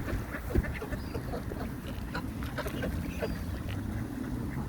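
Ducks and geese calling in short, scattered quacks and honks over a steady low rumble.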